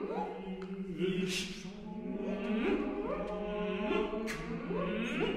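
Eight-voice a cappella ensemble singing a contemporary vocal piece: a low note held throughout while other voices slide upward again and again. Short hissed consonants cut in twice.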